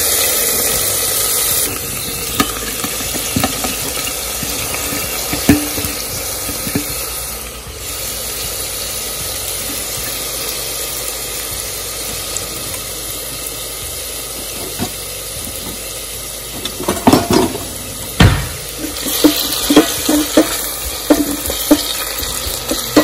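Chopped onion, tomato and green chilies sizzling in hot oil in a stainless steel Instant Pot inner pot on sauté. The sizzle is loudest in the first two seconds as they go in, then settles to a steady frying hiss, with a spatula stirring and knocking against the pot during the last few seconds.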